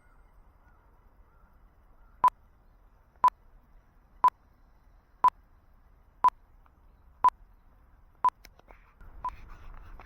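A series of short electronic beeps on one pitch, evenly spaced once a second, eight in all, the last one fainter, over faint background noise.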